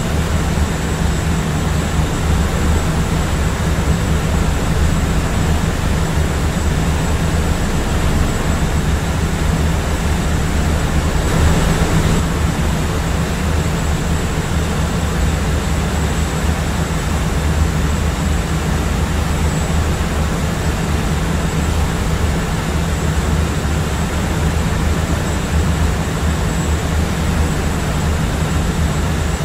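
Steady in-flight airplane cabin drone: a constant low engine rumble with rushing air, and a faint high steady whine above it.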